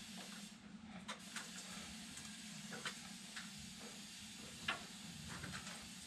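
Faint handling noises of automotive wiring and electrical tape: scattered light clicks and crackles as wires are taped and worked into the door pillar, over a steady low hum.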